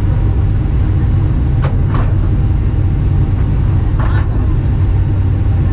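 Steady low rumble of engine and airflow noise inside the cabin of a Boeing 767-300 with Rolls-Royce RB211 turbofans, descending on approach to land. A few faint short sounds break through about two seconds in and again about four seconds in.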